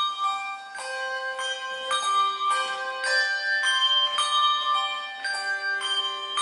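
Handbell choir ringing a tune: brass handbells struck one after another, about two notes a second, each note ringing on beneath the next.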